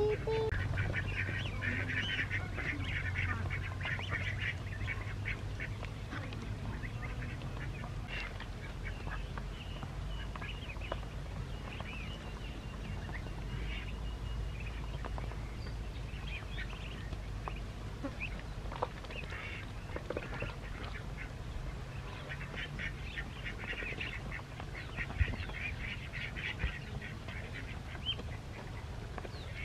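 Ducks quacking in busy bursts, loudest in the first few seconds and again near the end, over a low steady hum.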